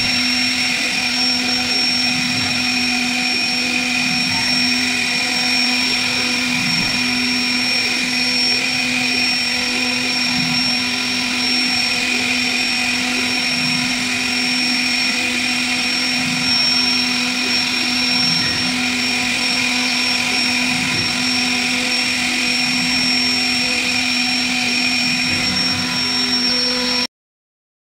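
CNC wood router spindle running with a steady, even whine of several fixed tones as its small bit cuts engraved grooves into a wooden door panel. It stops abruptly near the end.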